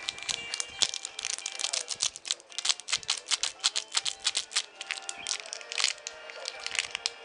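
Clear plastic wrapper of a clay packet crinkling as it is handled: a dense run of sharp crackles, busiest in the middle, over background music.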